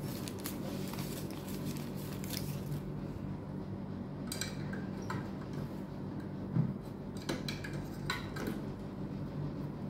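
Tissue paper rustling as a glass pH electrode is dabbed dry, then a few light clicks and knocks as the probes are handled at a plastic electrode stand, over a steady low hum.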